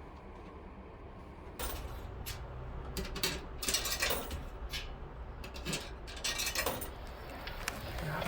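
Everyday handling noises: a string of rustles and light clatters over a low, steady background hum, starting about a second and a half in.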